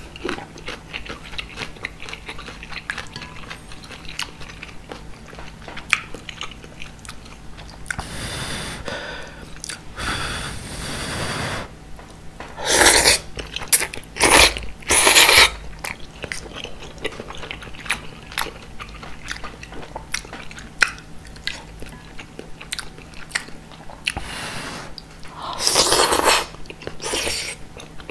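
Close-miked eating of udon noodle soup: soft wet chewing clicks throughout, with loud slurps of noodles and broth, a long one about a third of the way in, three in a row about halfway, and another near the end.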